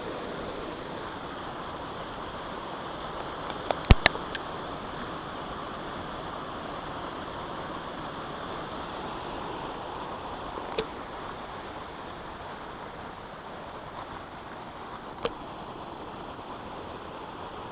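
Creek water rushing steadily over a small waterfall. A quick cluster of sharp clicks comes about four seconds in, and two single clicks follow later.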